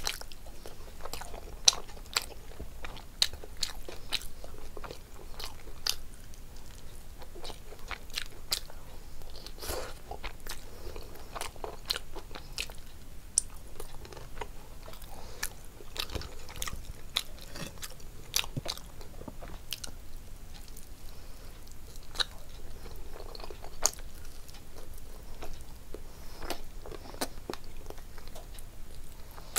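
A person chewing and biting food, with frequent sharp crunches at irregular intervals, while eating rice and fish curry by hand.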